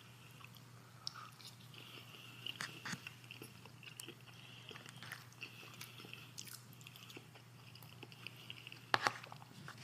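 Close-miked chewing and biting of food, a run of small wet mouth clicks and crunches over a steady low hum, with a sharper click about nine seconds in.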